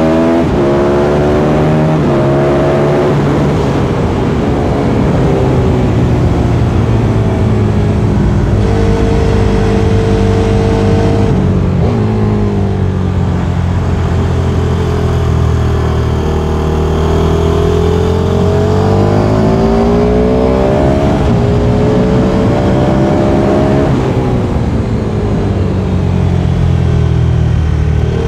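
Sport motorcycle engine heard from an onboard camera at speed on a race track, with a rush of wind noise. The engine pitch climbs hard through the gears with sharp drops at each shift, falls away as the bike slows for corners, then climbs again.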